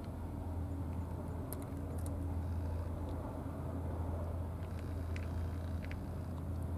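A steady low outdoor rumble, with a few faint clicks of a tabby cat chewing its food from a plastic dish.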